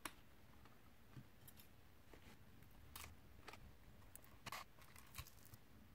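Near silence with faint, scattered clicks and scrapes of a small screwdriver and a metal prying pick working the plastic housing of a Nikon SB-900 speedlight as it is taken apart.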